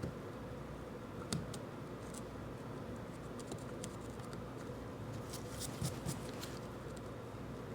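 A few light clicks and scrapes of small metal lathe parts and hand tools being handled during disassembly of the headstock, over a steady low hum.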